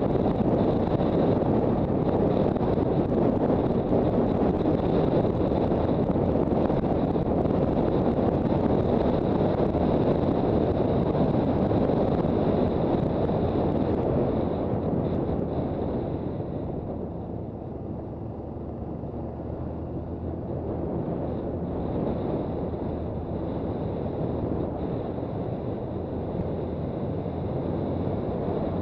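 Motorcycle riding at speed: wind rushing over the microphone, with the Honda CB400 Super Bol d'Or's inline-four engine running underneath. The rush eases a little about halfway through, then builds again.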